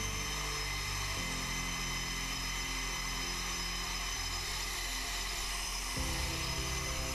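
Jet engines running on a flight deck: a steady high-pitched turbine whine over a rush of noise. Low held music notes play underneath and change about a second in and again near the end.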